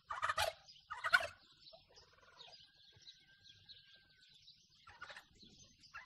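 Male turkey in full strut gobbling: two quick rattling calls in the first second and a half, then a fainter call about five seconds in.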